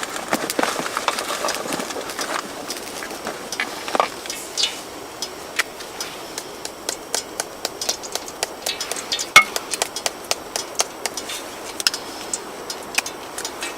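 Irregular sharp clicks and pops, a few a second, over a steady hiss, with one louder snap about nine seconds in.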